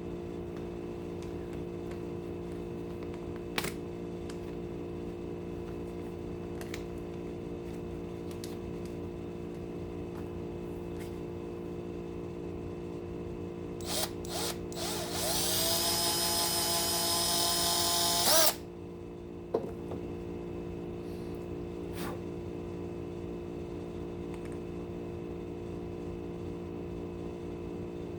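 A small power tool's motor spins up with a rising whine about halfway through, runs steadily for about four seconds and cuts off suddenly. Before and after it there are a few light clicks over a steady background hum.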